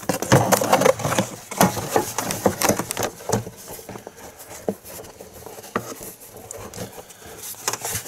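Plastic Ecotec engine cover being set down and pressed onto its mounting posts by hand: plastic rubbing, scraping and knocking, busiest in the first three seconds or so, then a few scattered clicks.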